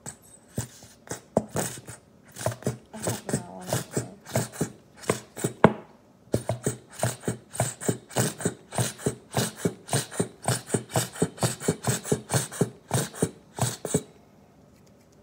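Plastic squeeze bottle of yellow mustard squeezed over and over, sputtering in quick sharp squirts about four or five a second, with a short pause about six seconds in; it stops about a second before the end.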